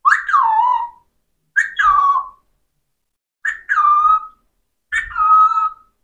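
Alexandrine parakeet giving four whistled calls about a second and a half apart, each a short note followed by a longer tone that falls in pitch.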